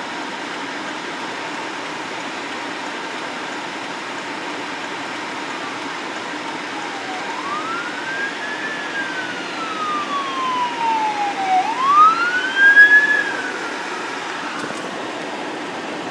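Emergency vehicle siren wailing. It comes in about halfway through as slow rising-and-falling sweeps, two full wails, and is loudest near the end before fading out, over steady background noise.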